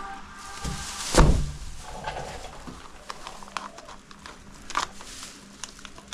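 A single heavy thump about a second in, followed by scattered light clicks and knocks.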